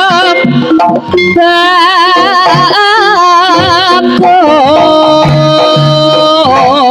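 Loud East Javanese jaranan music: a high singing voice holds long, wavering notes with strong vibrato over low drum strokes from the accompanying ensemble.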